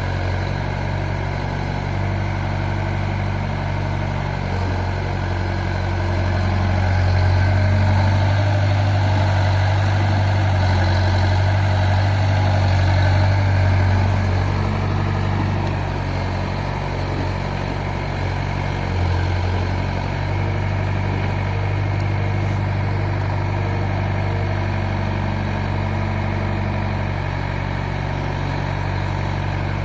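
Excavator's diesel engine running steadily, louder for several seconds in the middle.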